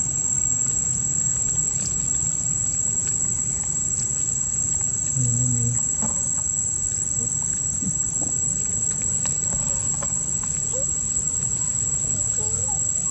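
Insects droning in one steady, unbroken high-pitched note, over a low steady rumble.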